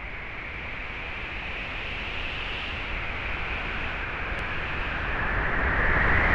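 A steady rushing noise that swells gradually louder.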